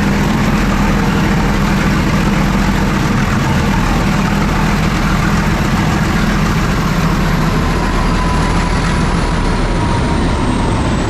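Nilgiri Mountain Railway toy train running along the line, heard from on board: a steady low engine drone over a broad, even rumble of the moving train.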